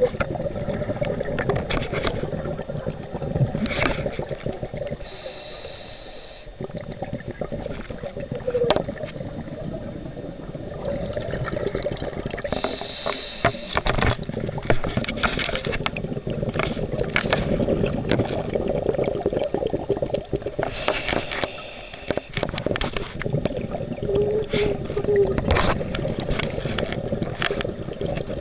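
Scuba diver breathing through a regulator underwater: a hiss on each inhale, about every eight seconds, between crackling bubbles of the exhale.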